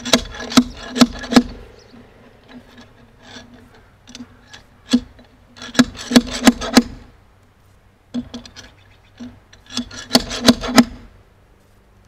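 Steel nail puller hammered down into a cedar cant to dig out a buried nail or staple: sharp metal-on-metal clanks that ring briefly, in three bursts of about four to six quick blows, with scraping in between.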